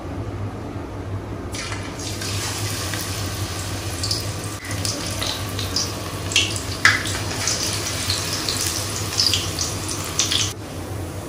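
Besan pakora batter frying in hot oil in a kadhai: a sizzle with crackles and pops starts about a second and a half in and stops suddenly near the end. A steady low hum runs underneath.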